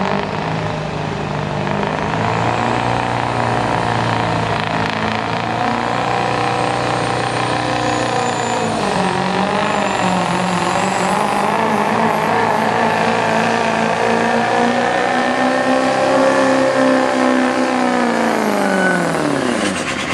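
Turbocharged diesel pickup engine at full throttle, pulling a weight-transfer sled. It runs at steady high revs with a thin high whistle, the pitch wavers midway, and the revs fall steeply near the end.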